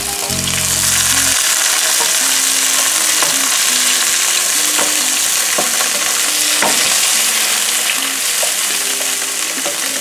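Sliced bell peppers sautéing in a skillet, a steady sizzle, while a wooden spoon stirs them and now and then clicks against the pan.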